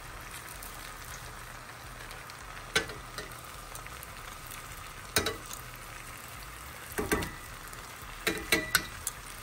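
Churro dough frying in hot oil with a steady sizzle. Sharp clicks and knocks cut through it about three, five and seven seconds in, then a quick cluster of them near the end.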